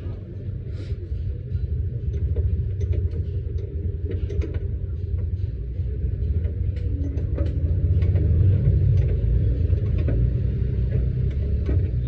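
A motor vehicle engine running with a steady low rumble that grows louder about eight seconds in, with scattered light clicks and taps over it.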